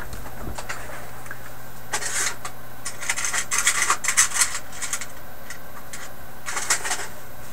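Small parts and objects being handled on a workbench: rustling and light clattering in several bursts, over a steady low hum.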